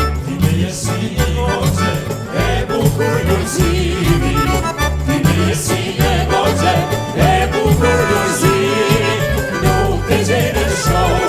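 Albanian popullore folk music playing, with an accordion melody over a steady bass beat.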